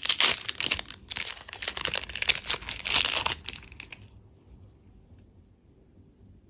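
Plastic candy wrapper crinkling and crackling, a dense run of fine crackles that stops about four seconds in.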